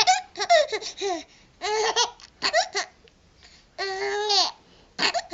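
Baby laughing in a string of short, high-pitched bursts with pauses between them, the longest about four seconds in.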